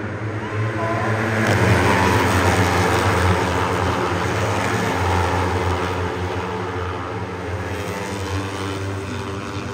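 400 cc sport production racing motorcycles passing at speed, their engines swelling to a peak about two seconds in and then fading slowly away.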